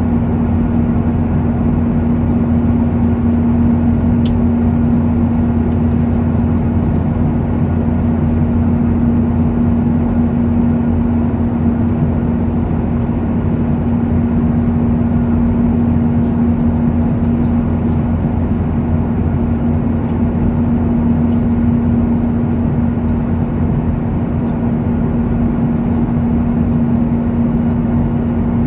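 Steady drone inside a jet airliner's cabin in cruising flight: engine and rushing-air noise with a constant low hum held at one pitch.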